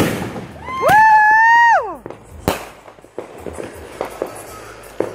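Fireworks going off: a sharp bang at the start and another about two and a half seconds in, with scattered crackling pops. About a second in, a high whistling note holds for about a second, then drops away.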